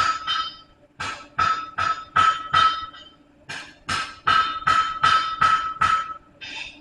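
Hammer blows on steel at the anvil while forging a blacksmith's chisel-style flatter, each blow leaving a short metallic ring. The blows come evenly, about two and a half a second, in runs broken by brief pauses.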